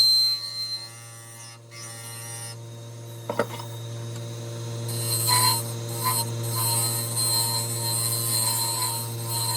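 Wood lathe motor running with a steady hum. A single sharp click comes about three seconds in, and from about halfway a high hiss joins in as the spinning wood is worked.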